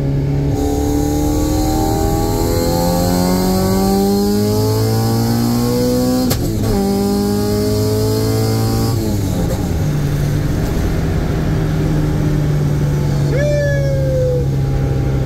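Honda B16 1.6-litre DOHC VTEC four-cylinder in a Civic pulling hard under full throttle, heard from inside the cabin. The revs climb, a gear change comes about six seconds in, and the revs climb again. The engine then settles to a steady cruise about nine seconds in.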